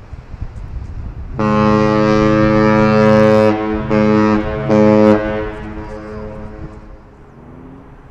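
Great Lakes freighter Atlantic Huron sounding its ship's horn in the master's salute: one long blast followed by two short ones, echoing away after the last.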